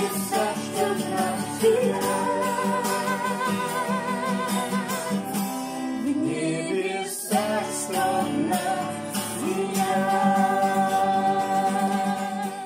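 The close of a song: a singer holds long, wavering notes over instrumental accompaniment, and the music dies away at the very end.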